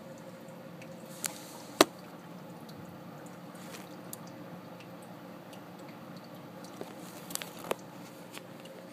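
Steady rain heard from indoors through a window, with a few sharp clicks, the loudest about two seconds in and a couple more near the end.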